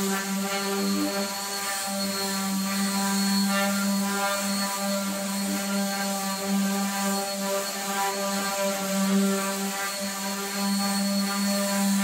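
Electric random orbital sander running steadily with an even hum, its pad sanding a rough cedar fence picket.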